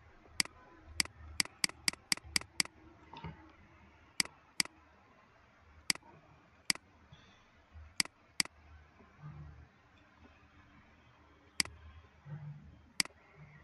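Computer mouse clicking: a quick run of about seven clicks near the start, then single clicks every second or two, as the cursor selects and drags anchor points.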